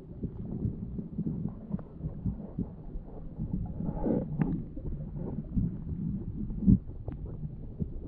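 Muffled underwater sound of river current heard through a submerged camera: a dull low rumble with scattered soft knocks, and one louder thump about two-thirds of the way through.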